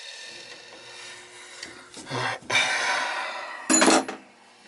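Screwdriver working on the chrome handle of a three-handle tub/shower faucet: metal scraping and rubbing against the fitting, with a short, louder clatter near the end.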